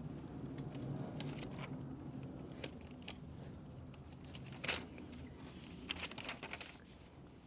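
A few light clicks and knocks of small metal parts being handled, the loudest about two thirds of the way through: hydraulic bucket lifters being taken out of a VW 16v cylinder head.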